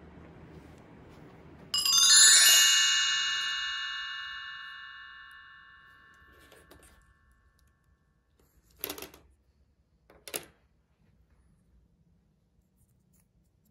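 A bright bell-like chime strikes once and rings out, fading over about four seconds. Two short clicks follow some seconds later.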